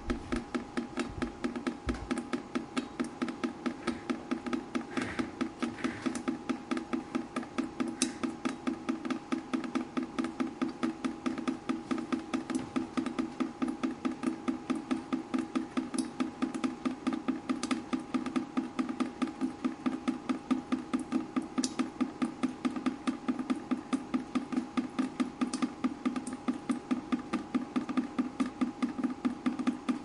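Water dripping in a rapid, even rhythm of about four drops a second, with an occasional sharper drip.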